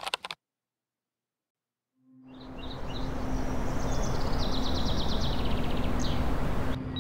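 A brief sound-effect hit at the very start, then about two seconds of silence. An outdoor ambience then fades in: a steady background noise with a low hum, and birds chirping, with a rapid trill about halfway through.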